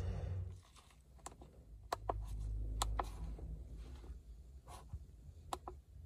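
Button presses on the keypad of a handheld OBD-II code reader: a handful of short, separate clicks, over a low steady rumble.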